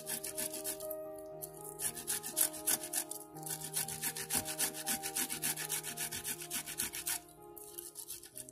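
A fresh strawberry rubbed back and forth on a metal grater, a quick, regular run of soft wet rasping strokes that breaks off briefly about seven seconds in. Soft background music plays underneath.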